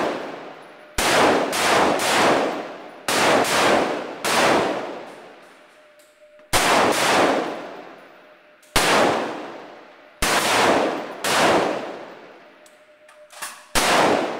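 Shots from M16-pattern service rifles fired one at a time by several shooters on a firing line. About nine sharp cracks come at uneven intervals, each ringing off in a long echo.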